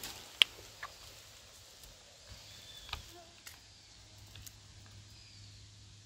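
Quiet forest ambience with a sharp click about half a second in and a few softer clicks after it, from movement through wet grass and undergrowth, with a few faint high chirps.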